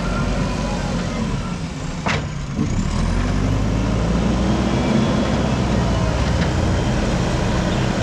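JCB backhoe loader's diesel engine running, revving up and working harder from about two and a half seconds in as the front loader bucket pushes soil. There is a single sharp knock about two seconds in.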